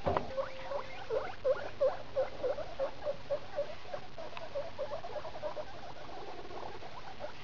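Guinea pig squeaking in a rapid run of short calls, about three a second, growing fainter and dying away after about five seconds.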